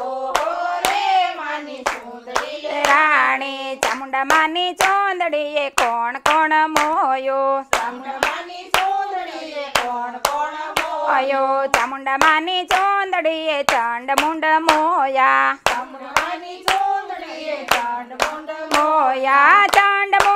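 Group of women singing a Gujarati garba devotional song together, clapping their hands on a steady beat.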